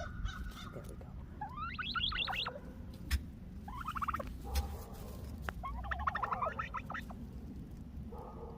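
Hen turkey calling in short bursts of rapid pulsing notes, three clear calls about two, four and six seconds in and a fainter one near the end.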